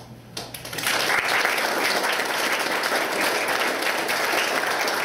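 Audience applauding. The clapping starts about half a second in, swells within a second and then holds steady.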